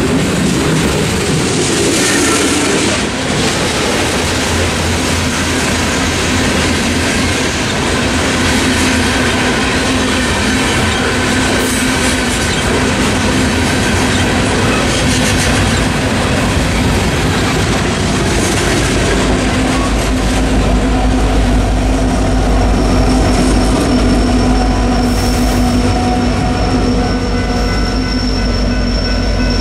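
Freight train of coal hopper cars rolling through a grade crossing, steady wheel-and-rail noise with the clickety-clack of wheels over the rails. A deeper rumble builds in the second half as the end of the train passes, and the crossing's General Signals Type 3 electronic bell rings out more clearly near the end.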